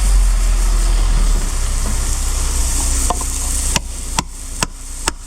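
Concrete mixer truck's engine running with a deep rumble under a steady rushing hiss. Several sharp clicks or knocks come in the last second and a half.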